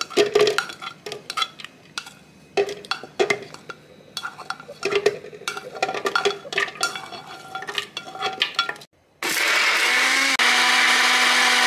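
Shallots, garlic cloves, ginger and black peppercorns dropped into a plastic blender jug make a scatter of small knocks and clatters. About nine seconds in, an electric blender starts and runs steadily, grinding the raw spice-paste ingredients.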